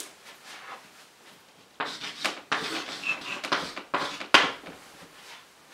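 Chalk writing on a blackboard: a run of short scratchy strokes from about two seconds in, ending with a sharp tap.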